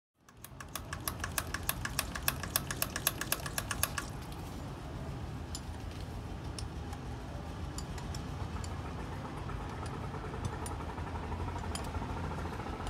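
John Deere 5405 tractor's diesel engine running at idle. For the first few seconds a fast, even clatter of ticks, about seven a second, rides over the engine's low hum, then it settles into a steady idle with only an occasional tick.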